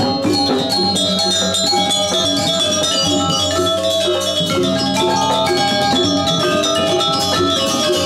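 Balinese gamelan pelegongan ensemble playing: bronze metallophones ringing in many fast notes over the hand-beaten strokes of two kendang barrel drums.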